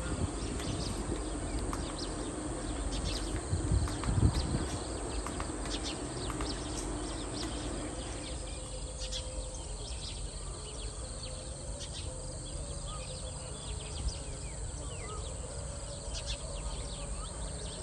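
Rural outdoor ambience: a steady background hiss with birds chirping and insects, scattered clicks and knocks through the first half, and a few louder low thumps about four seconds in.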